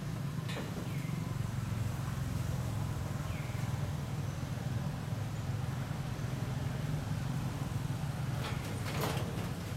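A steady low mechanical hum, like a motor running, throughout. A couple of faint short chirps come about one and three seconds in, and there are light clicks near the start and the end.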